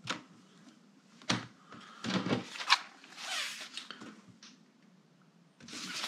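Plastic body of a Dell G15 laptop being handled on a desk: a click, a knock about a second in, a short clatter of clicks and knocks around two seconds in, then a brief rubbing slide. More handling noise starts near the end as the laptop is lifted and turned over.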